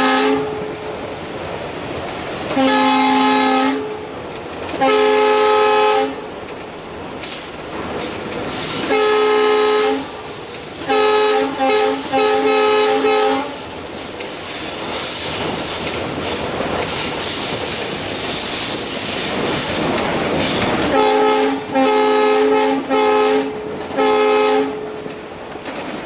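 A WDP4B diesel-electric locomotive's multi-tone air horn sounding in about ten blasts, each half a second to a second and a half long: several spaced blasts in the first half, then a second run of four short blasts near the end. In between, a high steady squeal of wheels on the rails runs for about six seconds, over the steady running noise of the locomotive heard from inside its cab.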